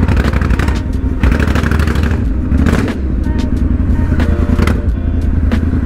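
Triumph parallel-twin motorcycle engine running with a steady, low exhaust rumble as the bike is ridden slowly through traffic, with short crackly noises over it.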